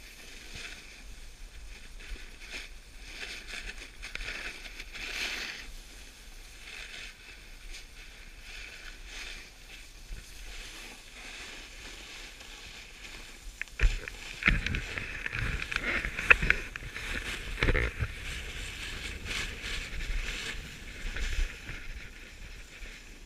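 Snowboard sliding down a groomed run, its base and edge hissing and scraping over the snow. About 14 seconds in it becomes louder and rougher, with scraping and low thumps as the edge carves harder.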